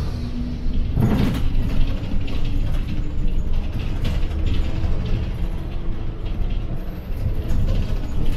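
City bus engine running as the bus drives, a steady low rumble and hum heard from inside the bus, with a brief noisy burst about a second in.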